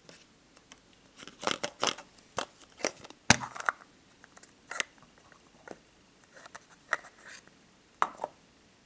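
Hollow plastic surprise-egg capsule being handled and pulled open: a run of sharp plastic clicks and rattles, with the loudest snap a little over three seconds in as the halves come apart. Lighter clicks follow as the small plastic toy figure inside is handled.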